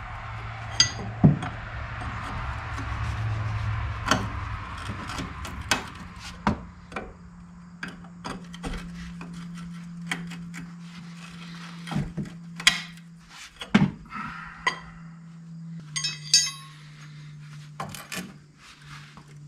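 Metal hand tools and parts clinking and knocking on a car's rusty rear wheel hub and suspension, in irregular sharp clicks and clanks. One clink, about three-quarters of the way through, rings on briefly.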